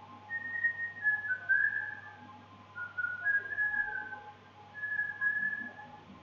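A person whistling a slow tune: three short phrases of held notes stepping up and down, with brief pauses between them. A faint steady hum runs underneath.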